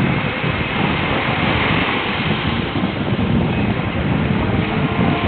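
Small waves washing up on the shore, with wind buffeting the microphone.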